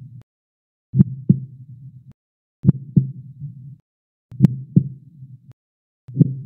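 Heartbeat sound effect: four double thumps, lub-dub, each pair trailed by a short low hum and cut to silence, repeating about every 1.7 s.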